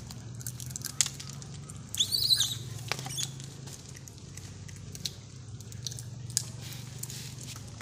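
Gray langurs feeding: scattered small clicks and crunches, with one short high squeak about two seconds in, over a low steady hum.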